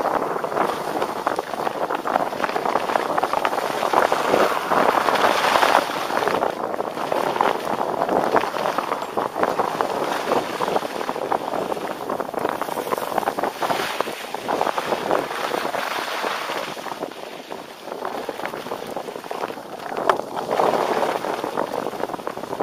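Skis carving and scraping over packed snow at speed: a rushing hiss that swells and fades with each turn, mixed with wind on the microphone.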